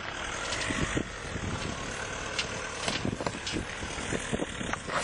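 SUV engine running on an off-road course, with frequent short knocks and rattles.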